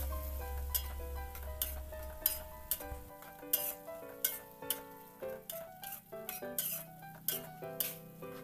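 Metal spatula scraping and clinking against an aluminium wok in a steady stirring rhythm, working a thick balado sauce, over background music.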